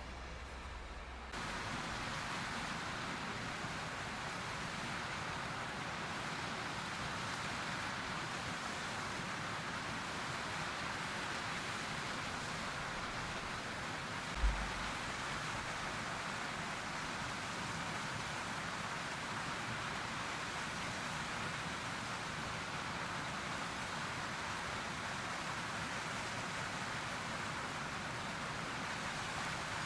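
Steady rushing outdoor noise that starts suddenly about a second in, with one dull low thump about halfway through.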